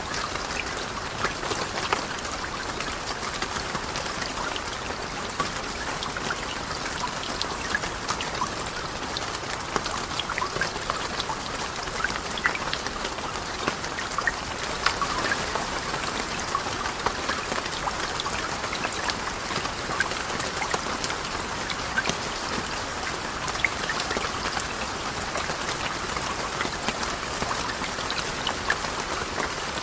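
Steady rain: an even hiss dense with many small sharp drop ticks, unchanging throughout.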